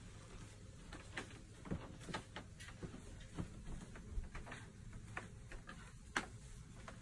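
Faint, irregular small clicks and taps, a dozen or more scattered through, over a low steady room background.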